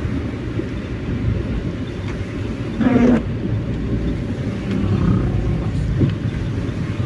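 Vehicle driving with a steady low rumble of engine and road noise. About three seconds in there is a brief pitched squeak lasting under half a second, which recurs every four to five seconds.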